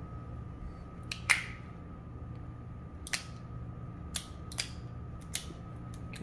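Sharp metallic clicks from a Smith & Wesson Airweight .38 revolver's action being worked as it is lubricated: about half a dozen at uneven intervals, the loudest about a second in.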